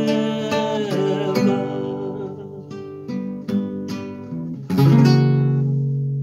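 Acoustic guitar strummed in a short run of chords, with a louder chord struck near the end and left ringing. At the start a man's voice finishes a held sung note over the guitar.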